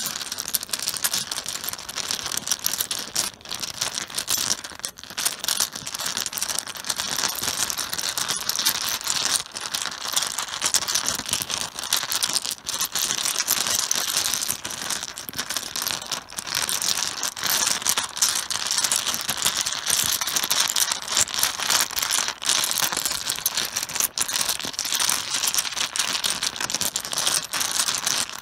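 Mahjong tiles clattering and clicking against each other as they are shuffled around on a cloth-covered table, a dense, continuous rattle.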